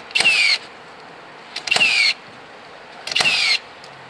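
HiKOKI NR1890DC 18 V brushless cordless first fix nailer firing three nails into softwood roof battens, about one and a half seconds apart. Each shot is a sharp crack with a brief whine that falls in pitch.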